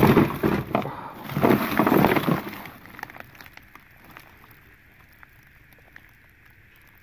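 Plastic bags and papers rustling and crinkling as hands dig through a plastic storage tote, loud for about two seconds, then dying away to faint scattered clicks.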